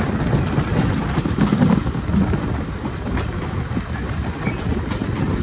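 Railway carriage running along the track: a steady rumble of wheels on rail, with the clickety-clack of wheels passing over rail joints.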